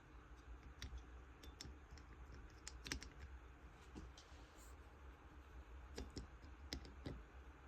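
Faint, scattered light clicks of small carburetor parts being handled and fitted together as a leaf blower's diaphragm carburetor is reassembled, against near silence.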